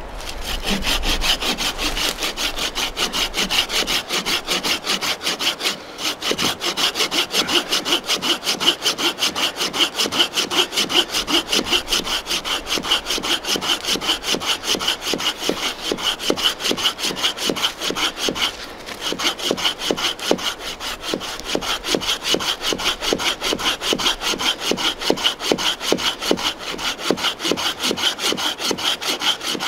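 Bahco Laplander folding saw cutting through a dry dead log three to four inches thick, in brisk, even back-and-forth strokes. The strokes stop briefly twice, about six and eighteen seconds in.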